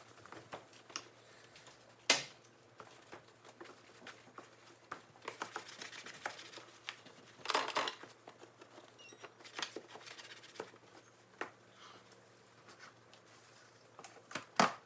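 Clicks, taps and rustles from cleaning the front of a refrigerator, with a sharp knock about two seconds in and a short scrubbing swipe about halfway through.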